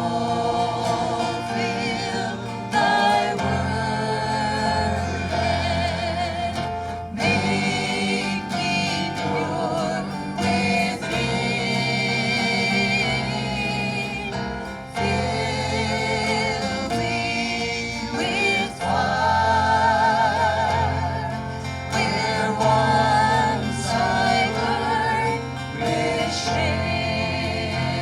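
A small group of singers singing a gospel song in harmony, with guitar and bass accompaniment.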